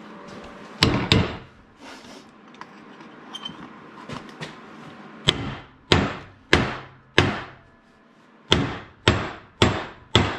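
Hammer blows on a seized part of an old, rusted arbor press, each with a short ringing tail: two quick blows about a second in, then two runs of four steady strikes about 0.6 s apart from the middle on. The part is binding hard.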